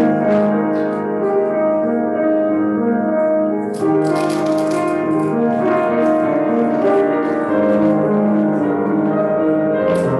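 Solo piano playing slow held chords with a melody, fuller and brighter from about four seconds in.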